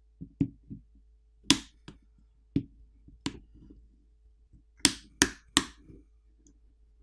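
Plastic catches of a Samsung Galaxy A32 5G's plastic back housing snapping free of the screen frame as a plastic pry pick is run along the edge: a series of short, sharp clicks, about ten in all. There is one louder snap about a second and a half in and a quick run of three near the end.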